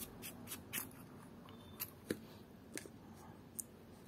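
Sofirn HS40 headlamp's tail cap being unscrewed by hand: a quick run of light clicks, then a few scattered clicks and taps as the parts are handled.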